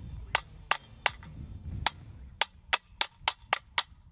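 An AK magazine striking the lowered hammer of a loaded 1873-pattern single-action Army revolver in .45 Long Colt, about ten sharp metallic knocks that come faster in the second half. These are blows meant to set off the round by hitting the hammer; no shot goes off.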